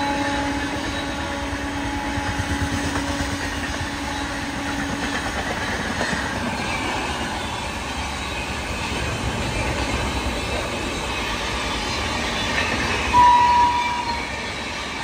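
Coaches of a Rajdhani Express rolling past at low speed, with a steady rumble and wheel clatter on the rails. A pitched hum fades out in the first few seconds. About thirteen seconds in, a short, high horn toot is the loudest sound.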